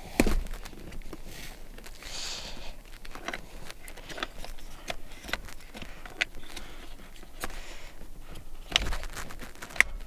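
Handling noise from an UPPAbaby Mesa infant car seat base and the car's seatbelt: scattered small plastic clicks and knocks with brief rustles, a sharper knock right at the start and a couple more near the end.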